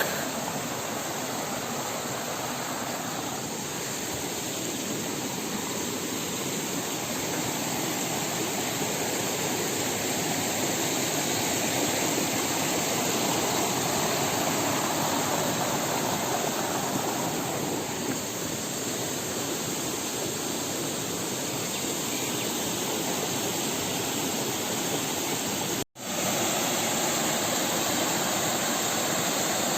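Waterfall pouring with a steady, even rush of water. It is broken once by a split-second gap near the end.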